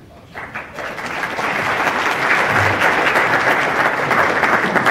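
Audience applauding: a roomful of people clapping, starting just after the beginning and swelling to steady, dense applause.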